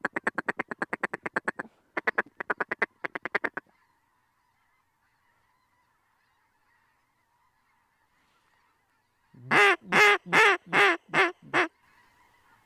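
Waterfowl calling in a hunting spread: a rapid run of duck chatter in three quick bursts, then after a few seconds' pause six loud goose honks in quick succession, with a faint steady din of a distant goose flock between them.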